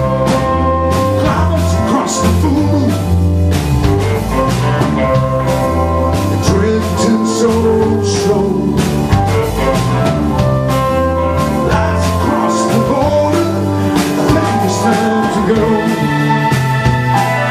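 Live rock band playing a song: acoustic and electric guitars, bass guitar and drums, with some singing.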